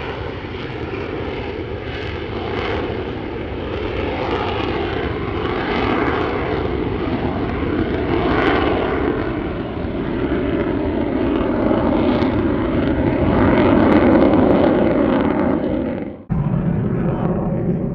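Jet noise from a Lockheed Martin F-35A Lightning II's single afterburning turbofan during a flying display, swelling and easing and loudest about fourteen seconds in. It breaks off sharply for a moment about sixteen seconds in, then carries on.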